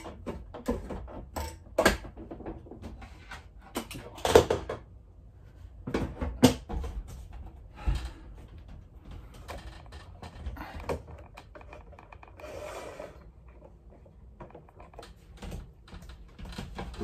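Scattered knocks, clicks and clatter of objects being handled in a small kitchen, several sharp ones in the first half, with a short rustle about two-thirds of the way through.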